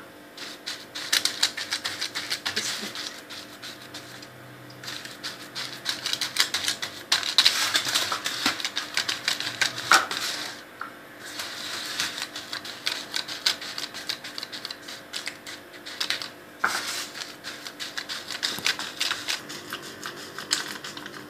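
Fingers pressing buttered Oreo cookie crumbs into a foil-lined pan: a dense, uneven run of small crackles and rustles from the crumbs and foil.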